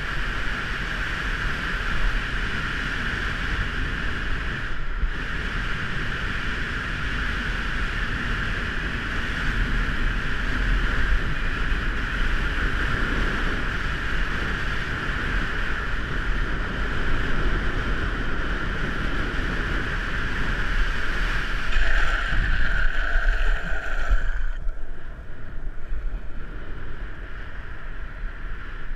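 Wind rushing over the camera and a longboard's urethane wheels rolling on asphalt at downhill speed, a steady roar. About 24 seconds in the upper hiss drops away and the roar turns quieter.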